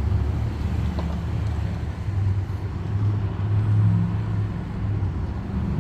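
Street traffic: a motor vehicle engine running nearby, a steady low hum that swells somewhat around the middle.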